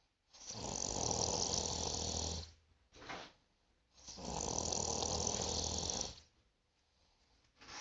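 A person snoring: two long snores of about two seconds each, with a short breath sound between them, and the next snore starting at the very end.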